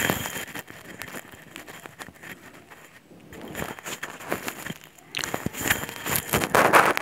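Crackling, scraping handling noise from fingers rubbing and fiddling with a wired earphone's inline microphone held close to the mouth. It is uneven clicks and rustles, loudest at the start and over the last two seconds.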